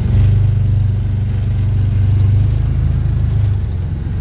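Strong blizzard wind buffeting the microphone: a loud, steady low rumble.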